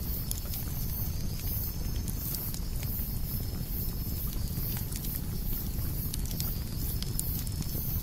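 Campfire crackling, with scattered sharp pops over a low steady rumble, and cicadas buzzing high in pulses about twice a second.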